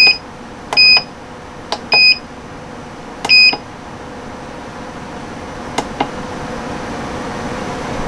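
Maticoopx 30-egg incubator's control panel beeping as its buttons are pressed to set the hatch countdown to 18 days: a beep that ends just after the start, then three short high beeps about a second apart, with sharp clicks between them and a pair of clicks near six seconds in.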